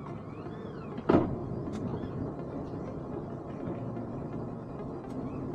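Twin outboard motors running at low speed under tow, with a steady mix of motor and water noise. A single sharp knock about a second in.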